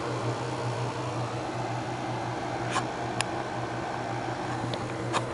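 Room cooling equipment running, a window air conditioner with an electric desk fan: a steady low electric hum under an even rush of air. A few light clicks come about three seconds in and near the end.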